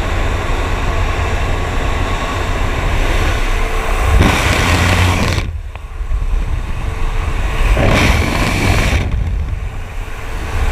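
Loud rushing wind and rumble buffeting the microphone, the hiss dropping away twice for a few seconds.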